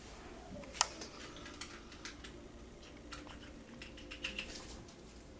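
Light, irregular clicking and tapping of small objects being handled, with one sharper click a little under a second in.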